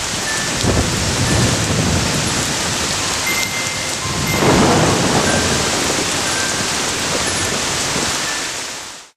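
Heavy rain falling steadily, with low rolls of thunder swelling about a second in and again about halfway through, then fading out at the end.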